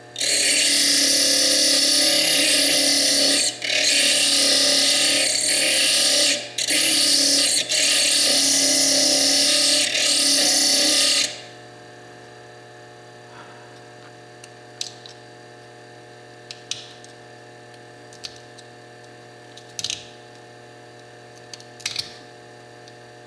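Foredom bench lathe spinning a small slitting disc that grinds into fire agate: a loud, steady hissing grind with three or four brief breaks, which stops about eleven seconds in. After that only a few faint clicks and taps.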